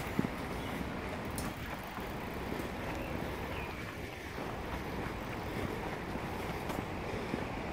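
Wind on the microphone, a steady low rumble and hiss, with a few faint ticks of footsteps on the dirt path.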